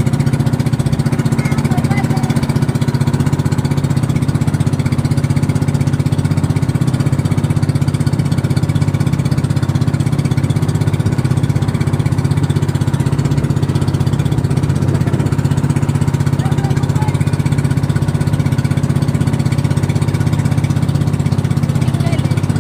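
Small boat's engine running steadily under way: a loud, even, low drone with a fast regular pulse.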